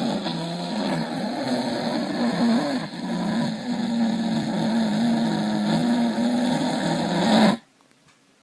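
Very loud, rough, rattling snoring with a wavering drone, held without a break and cut off suddenly near the end.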